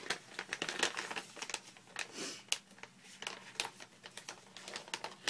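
Resealable plastic snack pouch crinkling and crackling in a run of irregular crackles as it is handled and opened. A longer rustle comes a little past two seconds in.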